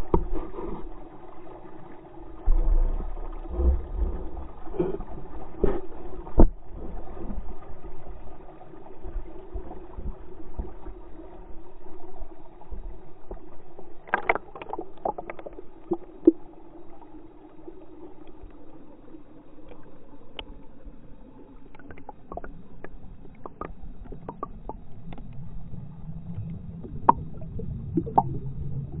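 Brook water heard underwater: a steady low gurgling rumble and hum, with many scattered pops and clicks of bubbles.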